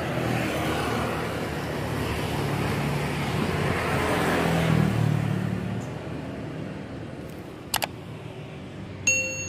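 Traffic noise: a motor vehicle running past, its rumble swelling and then fading away. A couple of sharp clicks come near the end, followed by a short bright ding.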